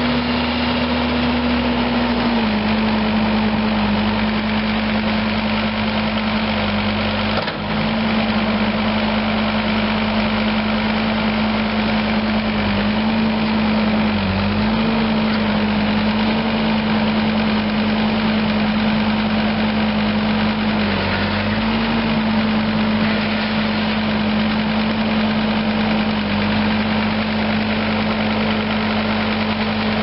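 The John Deere 5030HT014 3.0 L five-cylinder turbo diesel engine of a 2010 John Deere 326D skid steer running steadily at idle. Its pitch settles slightly lower about two seconds in.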